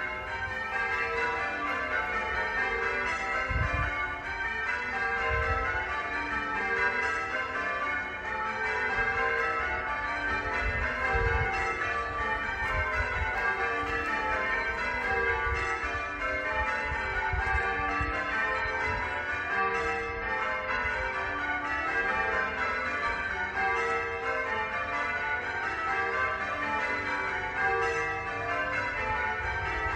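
Church bells pealing, several bells struck one after another in a steady, unbroken rhythm, their ringing overlapping. A low rumble comes and goes beneath them, strongest about four and eleven seconds in.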